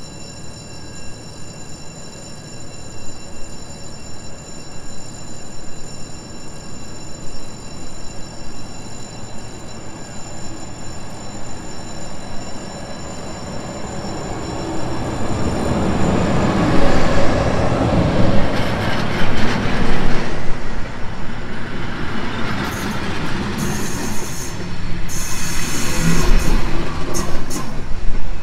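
Train moving on station tracks with a thin, high wheel squeal. From about halfway a train grows loud as it runs close by, and near the end its wheels give sharp high-pitched squeals against the rails.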